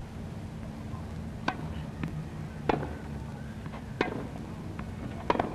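Tennis ball struck back and forth with rackets in a rally: sharp single knocks about every second and a quarter, over a low steady hum.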